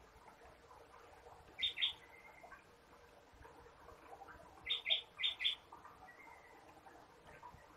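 A small bird chirping in short, high chirps: a pair about two seconds in, then a quick run of about five near the middle.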